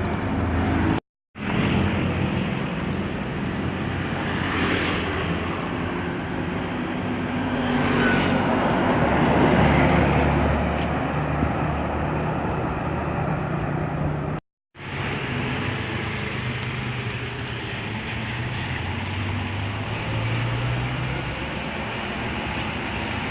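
Bus engines running with traffic hum, swelling louder for a few seconds about eight seconds in. The sound cuts out to silence briefly twice.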